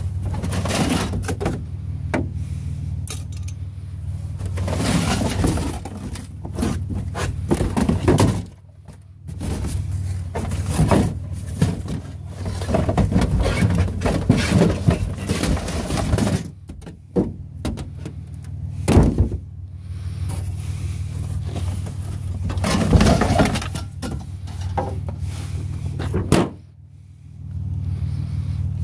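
Flattened cardboard boxes rustling, crackling and scraping against the sides of a plastic recycling bin as they are pushed aside by hand, in irregular bursts with short pauses. A steady low rumble runs underneath.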